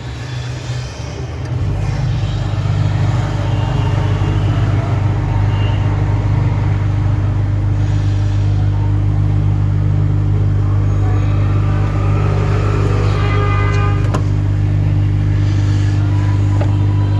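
Hot air rework station blowing steadily while a reballed RAM chip is heated onto a phone's circuit board: a steady low hum that comes up about a second and a half in.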